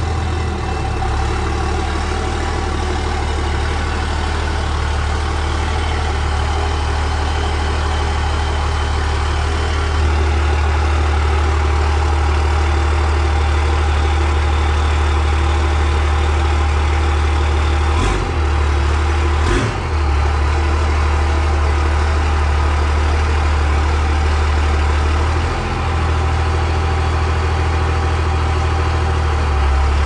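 Diesel pickup engine idling steadily: a Dodge 2500's 24-valve Cummins inline-six. It gets a little louder about ten seconds in, with a couple of brief dips past the middle.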